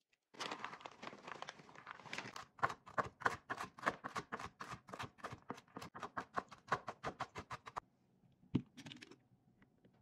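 A fork mashing banana against a ceramic plate for the first couple of seconds, then a chef's knife rapidly chopping walnuts on a wooden cutting board, about five quick strokes a second, which stop about eight seconds in. A single knock follows shortly after.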